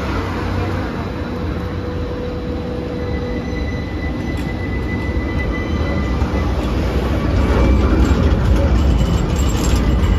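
Low-floor trams (an Alstom Citadis and a Bombardier Flexity) running on street track. A low rumble of wheels and motors grows louder as a tram draws up close near the end, with a thin, steady high wheel squeal on the rails.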